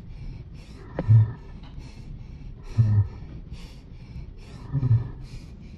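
A dog's heavy, rasping breathing, with a low snort about every two seconds. There is a sharp click about a second in.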